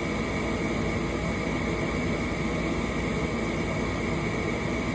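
Gas furnace's draft inducer motor running steadily, a constant whir with a thin high tone, while the newly replaced igniter glows: the start-up sequence is waiting for the gas valve to open.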